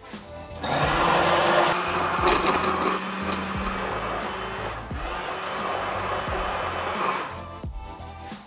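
Cuisinart Quick Prep immersion blender whirring in a glass jar, emulsifying oil and egg into mayonnaise. It starts about half a second in and stops about seven seconds in, a little louder in its first couple of seconds.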